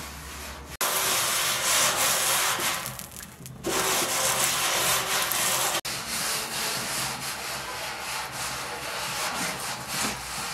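Flatbread being rubbed and pressed across a hot iron griddle with a cloth: a steady scraping hiss, broken off briefly twice.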